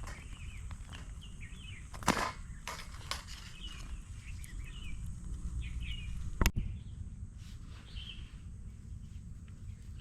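Small birds chirping repeatedly in forest, over a low steady background rumble. Two sharp knocks or clicks stand out, about two seconds in and again about six and a half seconds in, the second the loudest.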